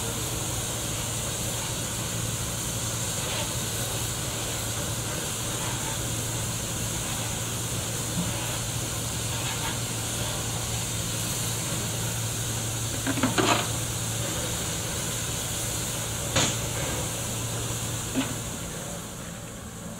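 Steam hissing steadily from a standing HSB 2-10-2 steam tank locomotive, over a steady low hum, with a few sharp knocks, the loudest about two-thirds of the way through.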